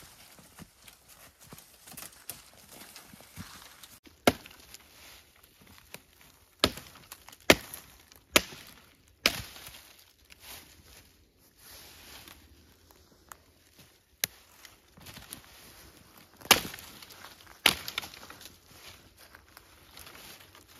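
Footsteps rustling through dry fallen leaves, then a long-handled sickle chopping dead wood: about eight sharp blows at uneven intervals, with leaf rustle between them.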